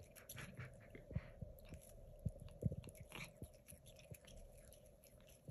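A cat chewing a shiny foil ribbon: faint, irregular little clicks and crinkles of its teeth on the ribbon.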